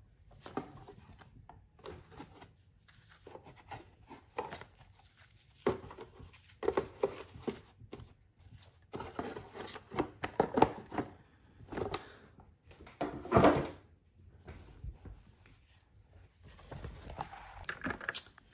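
Irregular rustling, rubbing and knocks from a boxed set's contents being handled with cotton gloves: a plastic DVD case lifted out and a large folded paper poster opened out flat. The louder knocks come a little past halfway.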